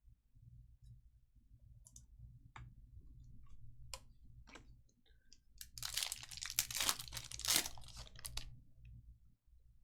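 Trading card pack wrapper crinkling and tearing open, with scattered light clicks of cards being handled beforehand; the crinkling is densest from about six to eight and a half seconds in.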